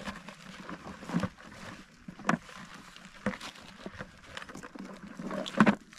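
Water splashing and sloshing in irregular bursts as a freshly caught trout is handled at the water's edge, with a few sharp knocks; the loudest comes near the end.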